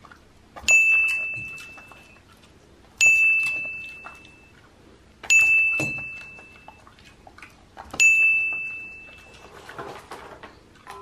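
A bell-like ding sound effect, four times about two to three seconds apart, each starting sharply and fading over about a second and a half; each ding marks one popcorn catch counted on screen.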